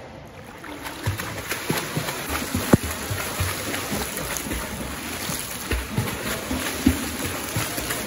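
Swimmer's flutter kick and freestyle arm strokes splashing through pool water: a steady wash of splashing broken by irregular slaps of hands and feet on the surface, one sharper slap about two and a half seconds in.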